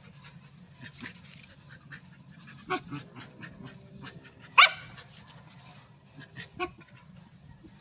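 Two dogs playfighting, making short sharp yips and snapping sounds, with one loud yip about halfway through.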